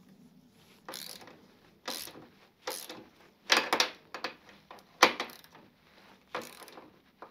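Socket ratchet wrench clicking in short runs, about once a second, as it winds down the nut of a bolt-and-plate press that draws a new steering-head bearing outer race into a motorcycle headstock.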